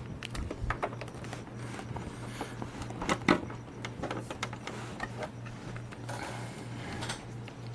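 Clicks and knocks of hands handling a PlayStation 3 console while its power cord is plugged back into the rear socket, the sharpest click about three seconds in, with some rustling later. A steady low hum runs underneath.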